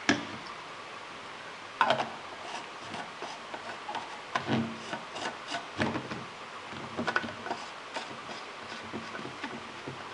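Stainless steel thermos mug and its screw cap being handled and the cap screwed on: a few sharp knocks and clicks one to two seconds apart, with rubbing and scraping in between.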